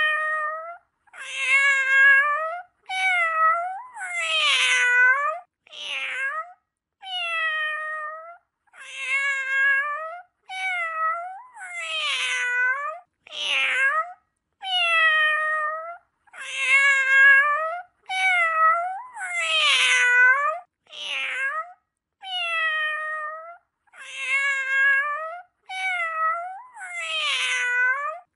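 Domestic cat meowing over and over: about twenty separate meows, each around a second long, many sliding down in pitch at the end, with short silent gaps between them.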